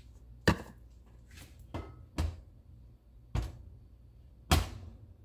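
Several sharp knocks and clunks of cookware handled on a glass-top electric stove, about a second apart; the loudest, near the end, comes as a cast iron skillet is set down on the cooktop.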